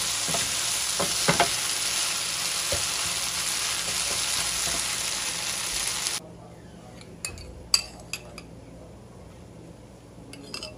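Marinated chicken pieces sizzling steadily in butter and oil in a nonstick frying pan while a spatula turns them, with a few scrapes. The sizzle cuts off abruptly about six seconds in, followed by a few light clinks of a metal utensil against a pan.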